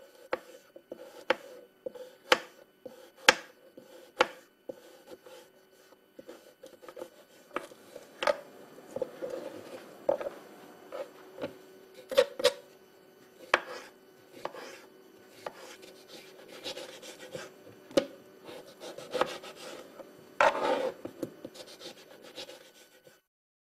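Kitchen knife chopping a carrot on a cutting board: sharp knocks of the blade on the board, about one a second at first, then quicker and irregular, with scraping between the strokes.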